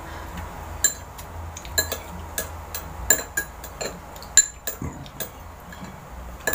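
Metal spoon and fork clinking and scraping against a ceramic bowl and plate while eating: a run of sharp, irregular clinks that starts about a second in.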